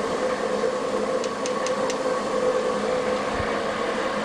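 Klopp 425 metal shaper running with a steady hum while its single-point cutter takes light cuts across a vise's flat spot, with four short ticks about a second and a half in.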